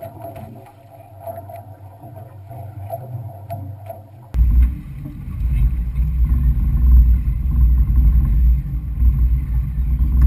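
Small fishing boat on the water: a steady low hum with a faint steady tone above it. About four seconds in, it changes abruptly to a much louder, deep rumble of the hull and wind.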